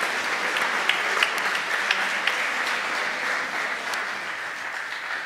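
Audience applauding, the clapping gradually dying away near the end.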